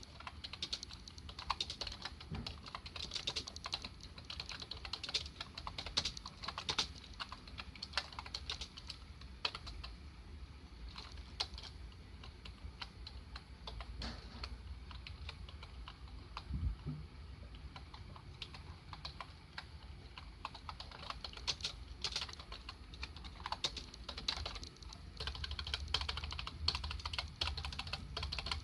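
Typing on a Dell computer keyboard: a quick, irregular run of key clicks that thins out for a while in the middle.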